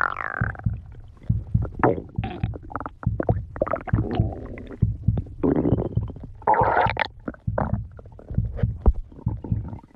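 A person's stomach growling and gurgling in an irregular string of bubbly rumbles and quick low pops, with a few longer squeaky rumbles that bend up and down in pitch near the start and about two-thirds of the way in.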